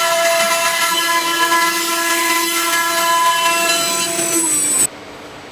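Nesting CNC router spindle running at speed with a high, multi-toned whine over the noise of cutting. A little after four seconds in the whine falls in pitch as the spindle slows, then the sound cuts off abruptly, leaving a much quieter steady hum.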